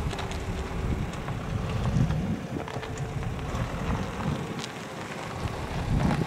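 Wind buffeting the microphone: a low, uneven rumble with a few faint clicks.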